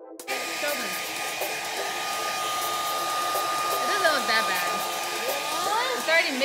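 Handheld hair dryer switched on a moment in and running steadily, a rushing blow with a constant high whine, drying wet paint on a painted craft figurine.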